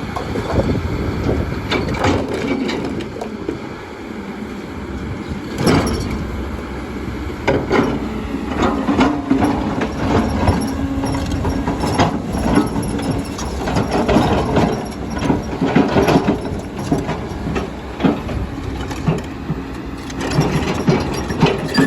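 Kobelco excavator at work: the diesel engine running under load with hydraulic whine, a steady whine for a few seconds near the middle, and repeated knocks and scrapes of rock against the bucket.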